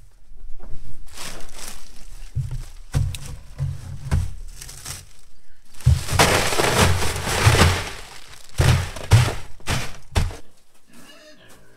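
Ice cubes poured from a bag into an empty black plastic tote, clattering and rattling against the plastic for about two seconds, with separate knocks and rustling of the plastic bag before and after.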